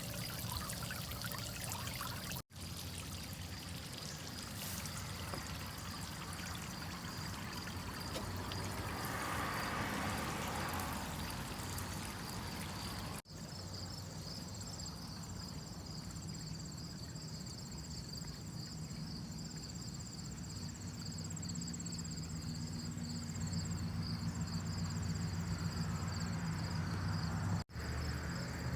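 Water trickling, with insects trilling steadily in a high, pulsing chirp; a second, higher insect trill joins about halfway through. The sound drops out briefly three times.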